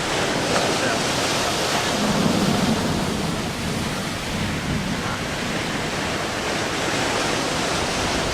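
Steady rushing noise of wind and sea waves, even throughout, with no distinct bangs or rumbles.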